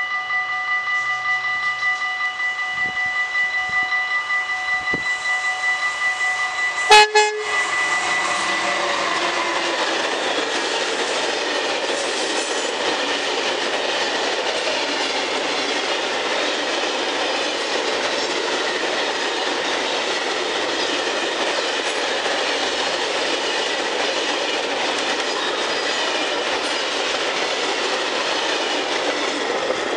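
Level crossing bells ringing in quick pulses, then about seven seconds in a single short blast of the typhoon horn of DB Cargo electric locomotive 1604. The steady noise of a freight train of tank wagons running past follows.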